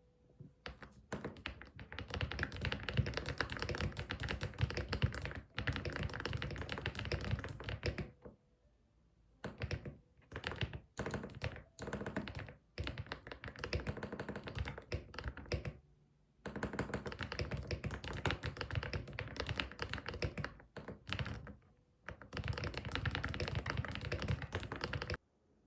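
Typing on a computer keyboard: long runs of rapid keystrokes broken by a few short pauses, stopping abruptly just before the end.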